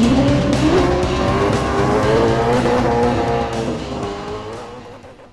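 Racing-car engine sound effect: the revs climb in pitch and then hold high with a wavering whine, fading out near the end.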